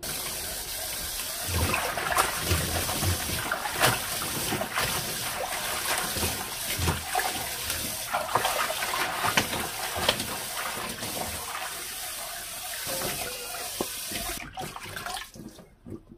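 Kitchen tap running into a stainless steel sink while hands swish and rinse leafy spring greens in a plastic colander, with splashing through it. The water comes on suddenly at the start and tails off near the end.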